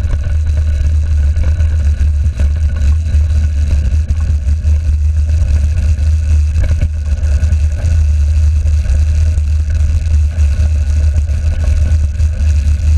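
Mountain bike rolling along a gravel forest track: a steady, loud low rumble of wind and vibration on the handlebar camera, with irregular rattling from the knobby tyres and frame over the gravel.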